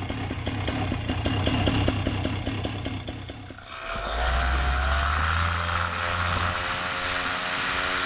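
Vittorazi Moster single-cylinder two-stroke paramotor engine running at low throttle with distinct firing pulses, then opened up about three and a half seconds in, its pitch rising and holding at high power with propeller noise for the takeoff run.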